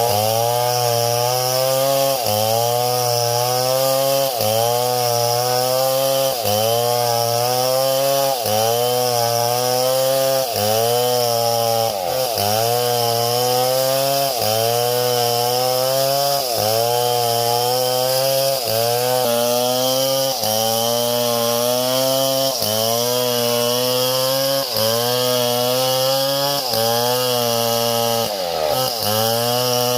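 Small chainsaw running hard, its engine pitch sagging and recovering about every two seconds as it cuts, with a deeper sag near the end.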